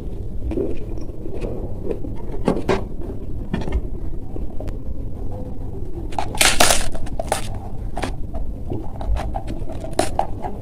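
Close-up eating sounds of crisp masala dosa: scattered crunches and chewing, the loudest crunch about six and a half seconds in, over a steady low rumble.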